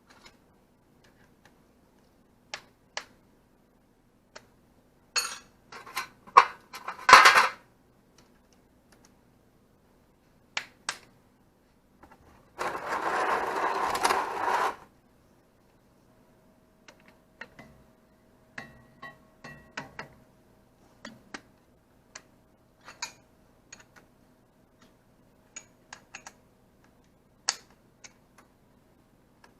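Hand tools and metal parts clinking and knocking in short, scattered taps during a gearbox oil change on a Ural sidecar motorcycle, with a busier run of clatter a few seconds in. Near the middle there is a rushing noise lasting about two seconds.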